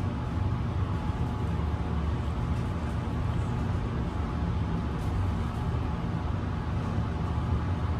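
Ride noise inside a high-speed Westinghouse traction elevator car, modernized by Schindler, travelling down the hoistway: a steady low rumble.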